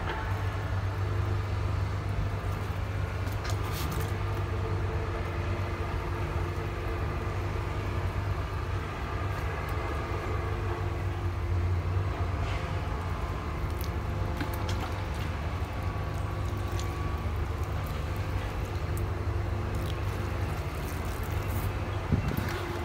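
A steady low mechanical hum with scattered light clicks and ticks.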